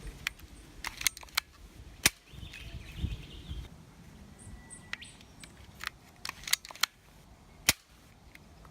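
Toy lever-action revolver blaster firing hard-tip foam darts: a run of sharp plastic clicks and snaps as the lever is worked and the spring fires, with the loudest snaps about two seconds in and again near the end.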